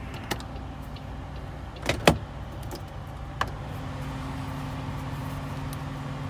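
Truck cab door being worked over a steady low hum: a few sharp clicks and one loud knock about two seconds in, from the door's lock and latch. Then, from just past halfway, a steady electric motor drone like a power window motor running.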